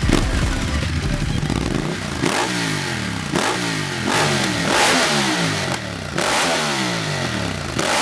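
Ducati Multistrada 1200 S L-twin engine with a full Termignoni exhaust, revved in a series of quick blips about a second apart, the revs falling away after each one.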